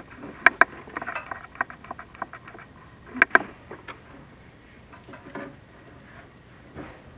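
Chimney inspection camera and its cable knocking and scraping against the clay flue tiles as it is lowered down the flue: sharp clicks, a strong pair about half a second in and another about three seconds in, with lighter rattling between.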